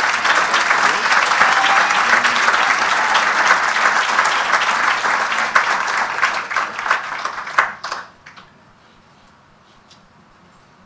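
Audience applauding, dense clapping that dies away about eight seconds in.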